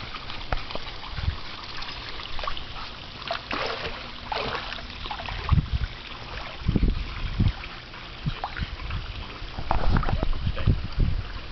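Pool water splashing and sloshing as a Labrador retriever swims, in irregular bursts, with low gusts of wind on the microphone.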